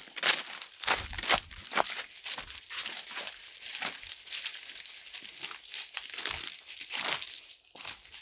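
Footsteps crunching and crackling through dry fallen leaves on bare earth, a quick run of steps, two or three a second.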